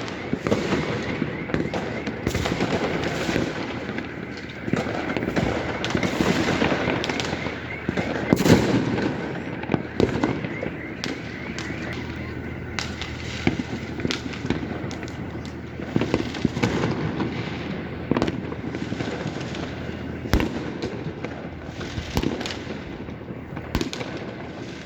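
Fireworks and firecrackers going off without a break: a dense crackle of many small pops with scattered louder bangs, the loudest about a third of the way in.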